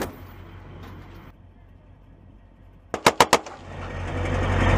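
M2 Browning .50-calibre machine gun firing a short burst of four rounds about three seconds in, with the echo of an earlier shot dying away at the start. After the burst, an armoured vehicle's engine runs, growing louder.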